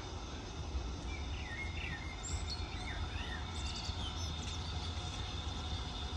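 Several short bird chirps and whistled calls, between about one and five seconds in, over a steady low rumble and a faint steady high hum.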